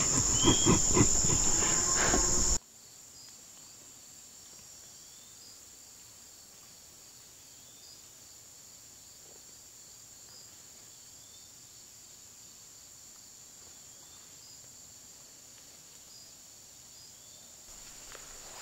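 A loud, steady, high-pitched insect chorus with some rustling and knocks over it. About two and a half seconds in it cuts off abruptly to a much quieter scene, where only a faint, high insect trill goes on.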